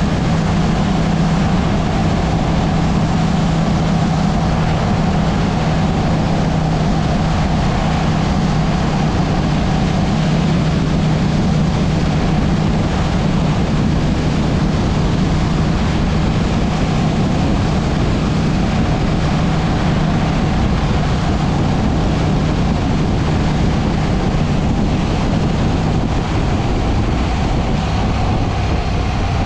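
KTM 790 Duke's parallel-twin engine running at a steady cruise, under heavy wind and road noise on a helmet-mounted microphone. Near the end the engine note drops lower as the bike slows.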